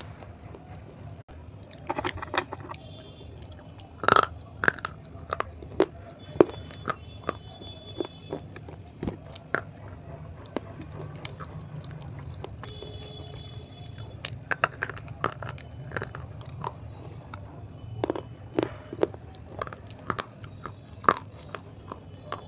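Person biting and chewing a crunchy clay roll: irregular runs of sharp crunches and crackles, with short gaps between them, over a low steady hum.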